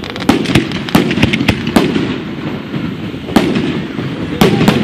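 Aerial fireworks shells bursting overhead: a quick run of sharp bangs in the first two seconds, then a few more later on, over a steady low rumble.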